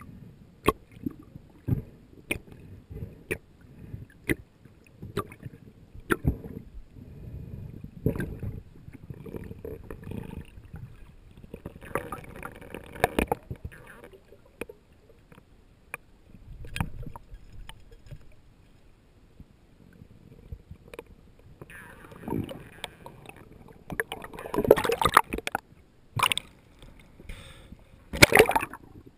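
Underwater recording from a spearfisher's camera: sharp knocks about once a second, then rushing, gurgling water noise that gets rougher and louder near the end as the camera breaks the surface.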